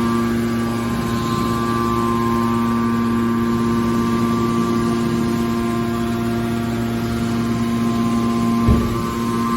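Hydraulic scrap car baler running: a steady machine hum with fixed tones. A single low thump comes near the end.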